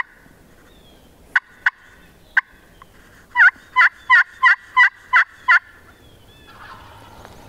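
Wooden turkey box call worked by hand, giving three short single clucks and then a run of seven hen yelps, about three a second. This is calling to draw in gobblers.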